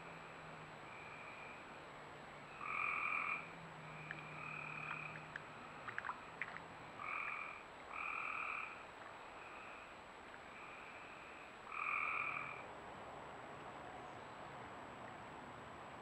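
Frogs calling: a series of calls about half a second to a second long. Louder ones come about three, seven, eight and twelve seconds in, with fainter ones between. A few sharp clicks fall around the middle.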